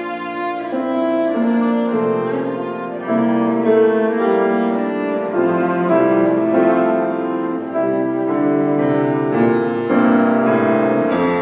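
Cello and grand piano playing a classical duet live, the bowed cello carrying the melody in held notes over piano accompaniment.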